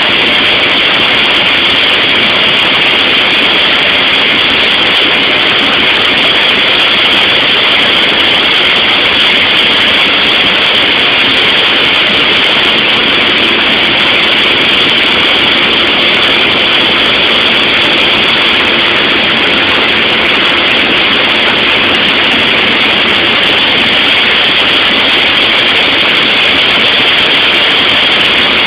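Small plane's engine and rushing air heard inside the cabin in flight: a loud, unchanging drone.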